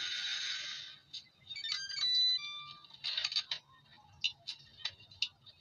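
A steady hissing noise cuts off about a second in. Then come a dozen or so sharp metallic clinks and taps, some ringing briefly with clear tones, typical of steel parts being handled or struck.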